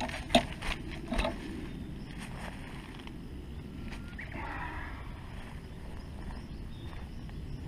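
Angler's handling noise while landing a bass by hand: a few sharp clicks and knocks in the first second and a half, then a brief scuffle about four seconds in as the fish is grabbed and lifted. A low wind rumble on the microphone runs underneath.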